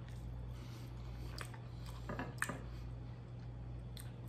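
Soft, quiet chewing with faint wet mouth clicks as a sauce-soaked plant-based chicken nugget is eaten, over a steady low hum.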